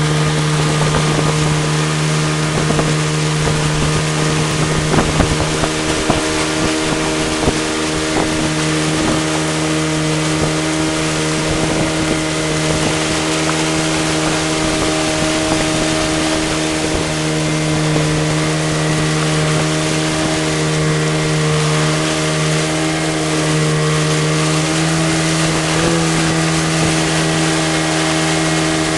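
Motorboat engine running at a steady speed, one constant hum, under a broad rush of wind and water. Wind buffets the microphone a few times around five to seven seconds in.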